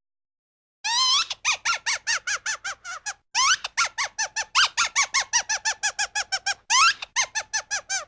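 High-pitched, squeaky cartoon laugh sound effect for a gopher. It comes as rapid squeaks, about six or seven a second, each rising and falling in pitch. It starts about a second in and runs in three long bursts, with brief breaks near three seconds and near seven seconds.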